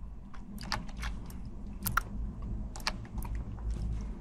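Irregular light clicks of a computer mouse and keyboard, about a dozen scattered through, over a low steady hum.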